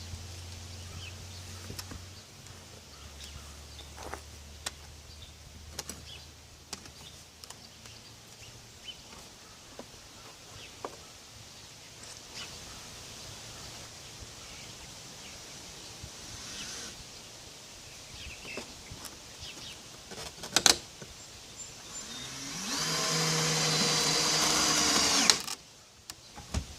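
Scattered clicks and knocks of PVC pipe and fittings being handled. Near the end a small power tool motor runs for about three seconds, rising in pitch as it starts and then cutting off suddenly.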